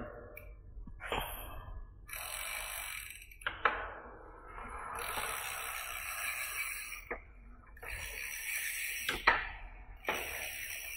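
Electric bike's 750 W rear hub motor whirring in about four short bursts as the pedal-assist sensor kicks it in, with a few sharp clicks between the bursts.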